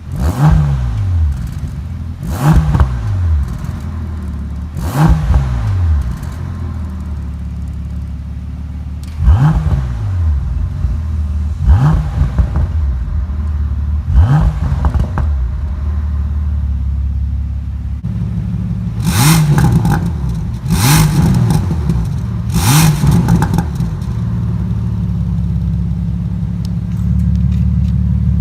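Bentley Continental GT's twin-turbo W12 with an OFFICE-K "Miracle" aftermarket exhaust, idling while stationary and blipped about nine times, each rev rising and falling quickly. About two-thirds of the way in the idle note changes and the last few revs come out sharper and crackly.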